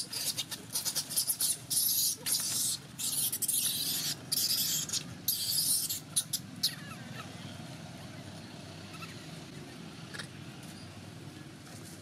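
Infant long-tailed macaque screaming: a run of shrill, high-pitched cries with short breaks, stopping about six and a half seconds in. One faint squeak follows later.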